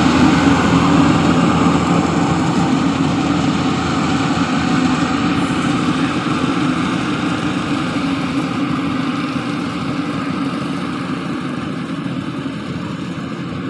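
Rice combine harvester's engine running steadily, gradually growing fainter.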